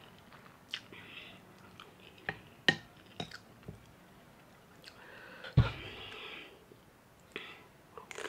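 Close-miked eating of ramen noodles: chewing with wet clicks and smacks, and short hissy slurps about a second in and again around six seconds. A single low thump about five and a half seconds in is the loudest sound.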